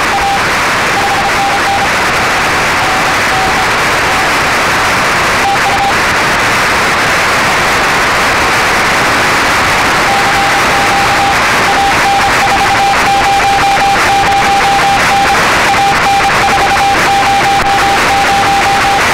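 Morse code heard through a shortwave receiver on the 20-metre band: a steady tone keyed on and off in dots and dashes over loud band hiss, with a pause of about four seconds in the middle. The signal is a station calling CQ.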